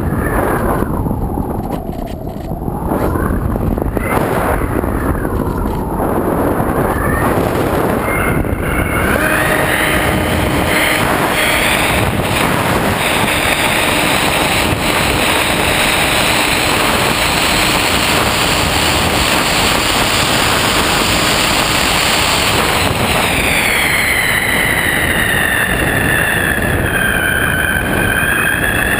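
Electric motor and pusher propeller of a Multiplex EasyStar RC glider whining steadily, with wind rushing over the plane. The whine dips in pitch and climbs back several times, most deeply about two seconds in and again near the end.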